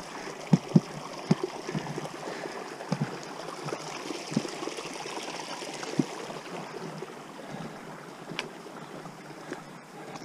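A small stream running steadily beside the track, with the thuds of a hiker's footsteps on the rocky path, several in the first couple of seconds and a few more later.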